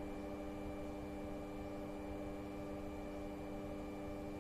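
A steady low hum made of several even tones, held at a low level with no change: background room hum.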